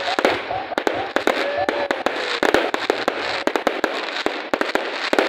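Aerial fireworks going off in a rapid string of sharp bangs and crackles, several a second.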